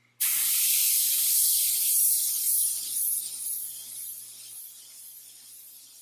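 Meng MT-001 airbrush spraying paint onto paper in a wide stroke: a hiss of air and paint that starts abruptly, holds for about three seconds, then fades off gradually.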